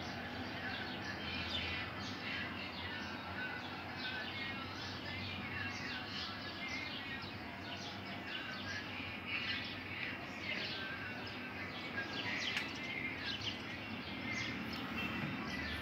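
Many small birds chirping at once, a busy unbroken chatter of short chirps, over a low steady hum.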